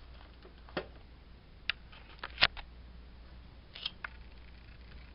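Scattered plastic clicks and knocks as the hollowed-out clock radio's case is handled, the loudest about halfway through, over a faint low hum.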